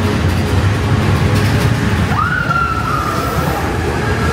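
Space Mountain roller coaster train rumbling steadily along its track in the dark. About two seconds in, an electronic ride effect tone sweeps up and holds for about a second and a half.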